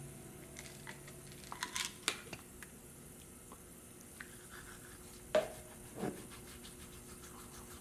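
Quiet bathroom sink sounds: a toothbrush scrubbing teeth amid small clicks and taps of things handled at the counter, with two sharper knocks about five and a half and six seconds in.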